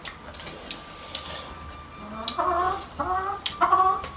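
A hen clucking in short repeated calls from about halfway through. Before that there are only faint clicks of forks and eating at the table.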